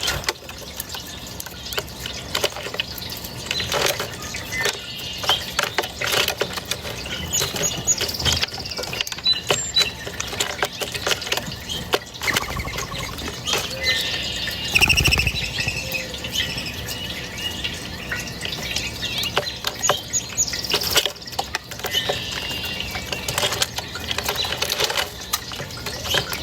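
Small birds chirping, with short high calls and a trill about halfway through, over a constant background of sharp clicks and rustling noise.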